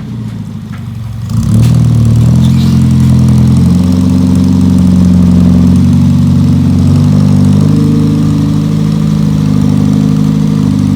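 Toyota KP30 Starlet's 4K four-cylinder engine running through a new extractor exhaust. It is quieter for about the first second and a half, then louder, and its pitch steps up and down several times.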